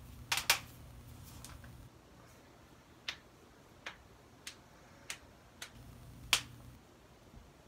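About eight sharp clicks made with the hands, two close together near the start, then single ones spaced irregularly about a second apart, the loudest about six seconds in.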